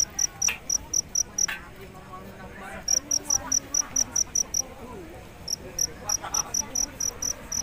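A cricket chirping in a steady rhythm of about six short, high chirps a second, in three runs with brief pauses between them.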